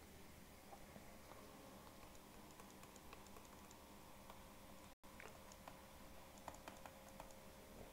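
Near silence with faint, irregular taps and clicks of a stylus writing on a tablet, over a low steady electrical hum. The sound drops out completely for an instant about five seconds in.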